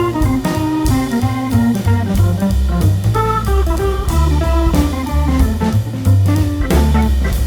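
Background music: an instrumental track with a steady drum beat, a strong bass line and melodic guitar-like notes.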